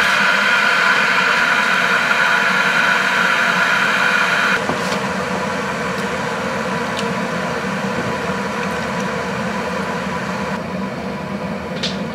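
Steady rushing noise of an electric kettle heating water, dropping slightly about four and a half seconds in, with a few faint clicks.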